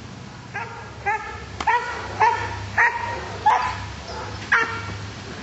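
A Malinois-cross dog barking repeatedly, about seven barks a little over half a second apart.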